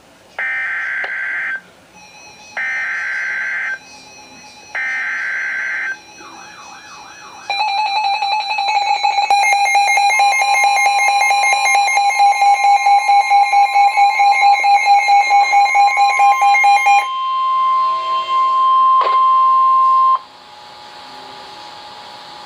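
Emergency Alert System tones: three bursts of warbling data tones (the SAME header), about a second each with short gaps between them. Then a loud two-tone attention signal comes in about seven seconds in and holds steady. Near the end a single high tone carries on alone and cuts off suddenly.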